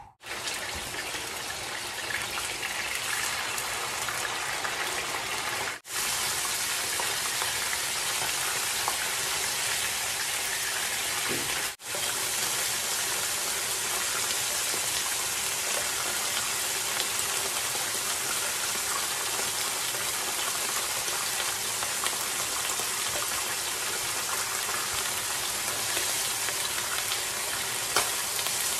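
Chicken thighs and wings frying in hot canola oil in nonstick pans: a steady sizzling hiss and crackle that cuts out for an instant twice, with one sharp click near the end.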